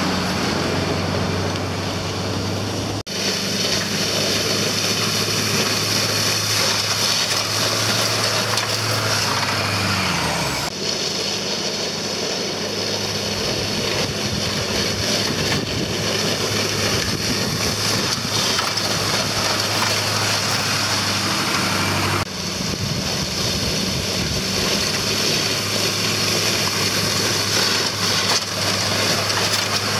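Pickup truck engine running steadily under load as it pushes a front-mounted grader along a gravel dirt road, over the constant scrape and crunch of gravel under the blade and tyres. The engine's pitch shifts suddenly a few times.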